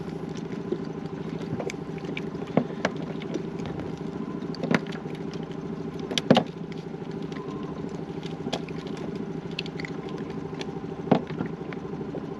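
A steady low mechanical drone, with a few sharp clicks and knocks from handling a freshly caught fish and fishing tackle, the loudest about six seconds in.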